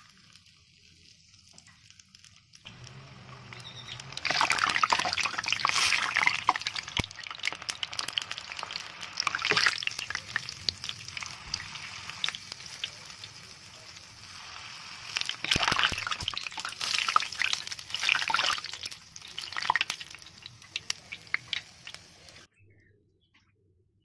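Raw peanuts deep-frying in hot oil in a mesh strainer: the oil sizzles and crackles, starting faintly and turning loud a few seconds in, swelling and easing in waves. It cuts off suddenly near the end.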